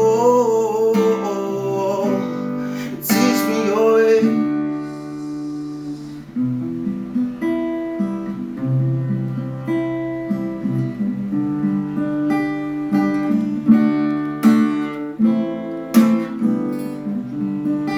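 Acoustic guitar playing slow chords, strummed and let ring, closing out a worship song. A held, wavering sung "oh" fades during the first few seconds.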